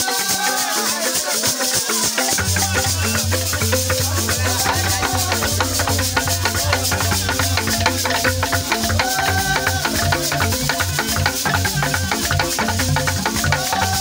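Embaire, the large Busoga wooden xylophone, played by several players at once in fast, dense interlocking strokes, with a continuous high rattle running over it. Deep bass bars come in about two seconds in and keep pulsing under the higher notes.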